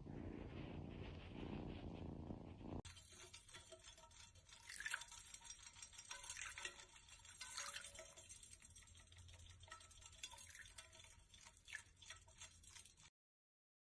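A cat purring, a close, steady rumble for the first three seconds, which cuts off abruptly. It gives way to faint scattered clicks and crackle, which stop dead shortly before the end.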